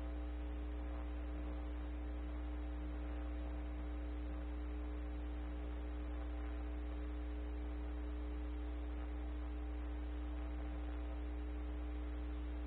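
Steady electrical hum: a low drone with several fixed higher tones above it, unchanging throughout.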